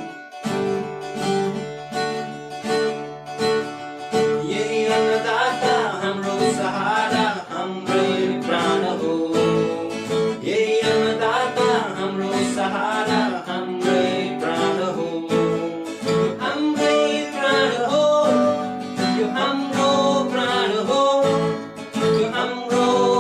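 Music: strummed acoustic guitar, joined about five seconds in by a melody line that slides up and down in pitch.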